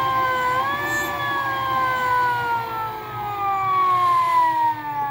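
Three-phase electric hub motor of a 3 kW quad bike conversion, free-spinning on the bench off its controller, giving a loud whine of several stacked tones. The pitch dips briefly about half a second in, recovers, then slides steadily down as the motor winds down.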